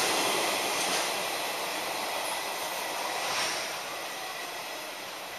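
Empty freight train's wagons running past on the rails and drawing away, the noise fading steadily as the last wagon goes by.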